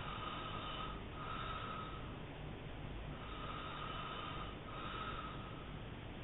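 A sleeping man snoring hard, a rasping snore on each breath. Four snores of about a second each, with a longer gap between the second and third.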